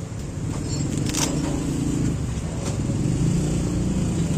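A steady low engine hum, with a few light clicks.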